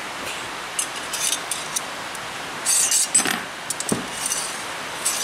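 Light metallic clinks and clicks from hand tools and steel brake-line tubing being handled and bent, in short irregular clusters with the busiest about three seconds in, over a steady background hiss.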